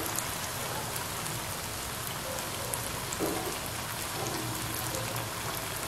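Balls of idli-batter bonda deep-frying in hot coconut oil: a steady sizzle of bubbling oil.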